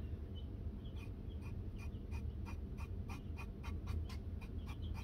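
Paintbrush scrubbing back and forth in short quick strokes, about four a second, against the plastic side of a model boxcar, working damp gouache weathering paint back off.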